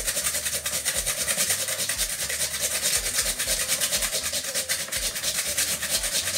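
Raw peeled potato grated on a stainless steel box grater into a plastic bowl: quick, steady rasping strokes.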